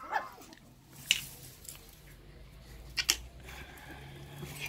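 Russian Toy dogs play-fighting on a tiled floor: quiet scuffling and mouthing, with a short sharp sound about a second in and another near three seconds.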